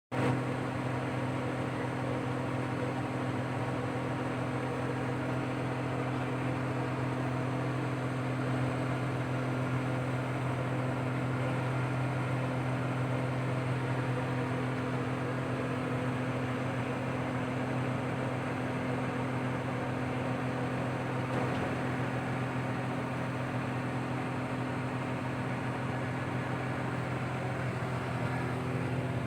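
Steady, unchanging low machine hum with a constant pitch, like a running motor or engine.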